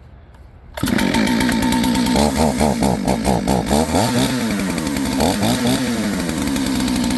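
Kit-built clone two-stroke chainsaw catching and starting about a second in, then running, revved up and down several times before settling to a steady run. It fires up quickly after sitting unused for months.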